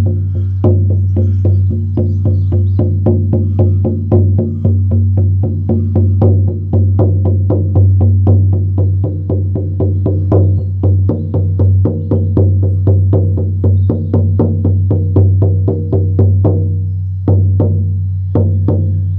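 16-inch horse-skin shamanic frame drum on a willow frame, struck with a firm beater in a steady beat of about three strokes a second, a deep boom ringing under every stroke. Near the end the beat breaks off into a few last strikes and the drum rings out.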